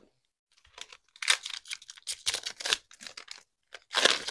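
Plastic wrapper of a 2023 Topps Allen & Ginter hobby pack crinkling in the hands as it is handled and torn open. It comes as a series of short, irregular rustles, with the loudest burst near the end.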